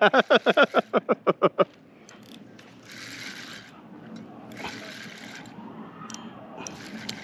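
A spinning reel cranked by hand in short spells, a light whirring of its gears and bail, after a quick run of short voiced syllables that stops about a second and a half in.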